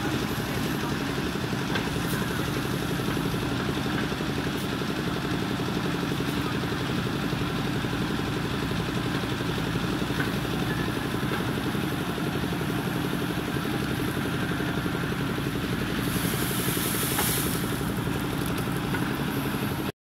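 JCB 3DX backhoe loader's diesel engine running steadily under load as the backhoe arm digs soil, with a few light clanks and a brief hiss about three-quarters of the way through.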